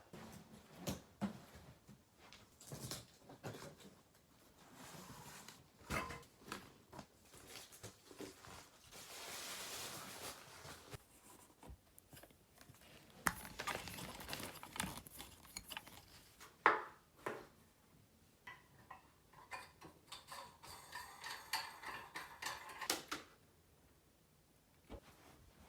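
Small objects being handled indoors: scattered clicks, knocks and taps, with a hissing rustle about ten seconds in and a quick, even run of ticks near the end.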